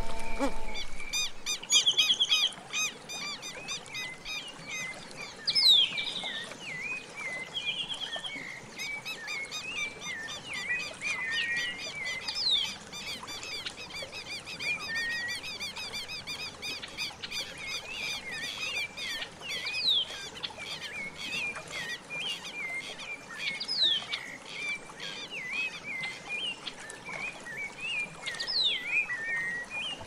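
A chorus of wild birds calling: dense, rapid chirping runs throughout, with a sharp falling call standing out every few seconds.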